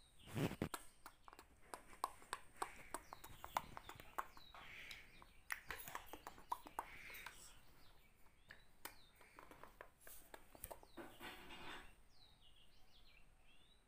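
A run of irregular light taps and clicks, the loudest about half a second in, with short high bird chirps coming through in between.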